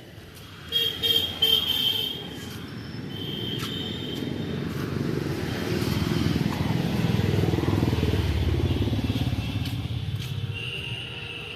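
Street traffic: a few short horn honks about a second in, then a motor vehicle's engine passing close, growing louder toward the middle and fading away. Another horn sounds near the end.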